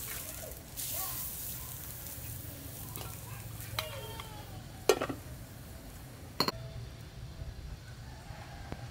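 Metal ladle stirring soup in an aluminium pot, over a steady hiss, with a few sharp metallic knocks around the middle.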